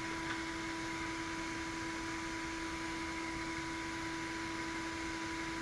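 Steady background hum and hiss, a constant low tone with a fainter higher one.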